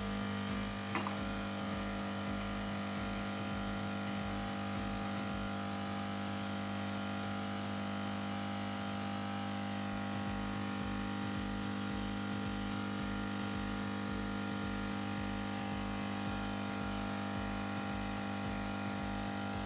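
Siemens EQ500 bean-to-cup espresso machine humming steadily as it pumps and dispenses coffee for a latte macchiato, with a brief click about a second in.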